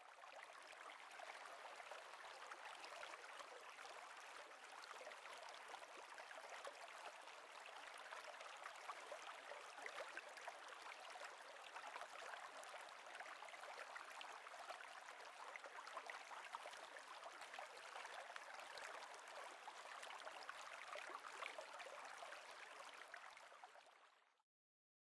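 Faint, steady rushing noise with a fine crackling texture, fading in at the start and fading out shortly before the end.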